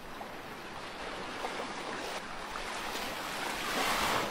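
Sea waves washing, a steady rushing noise that swells louder near the end.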